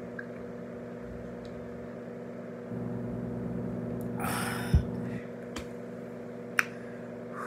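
Steady low room hum. About four seconds in there is a short breathy rush, then a thump as a plastic water bottle is put down on the table, and a light click near the end.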